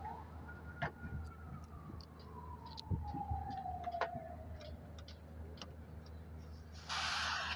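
Small metallic clicks and taps as a manifold gauge hose fitting is threaded onto the charging port of a running split AC outdoor unit, over a steady low hum, then a short loud burst of hissing near the end as the fitting opens the valve and R410A refrigerant escapes. A faint tone slides slowly down in pitch over several seconds in the middle.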